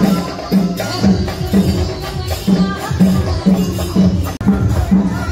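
Music with a steady beat of about two drum strokes a second under a melody. The sound drops out very briefly about four and a half seconds in.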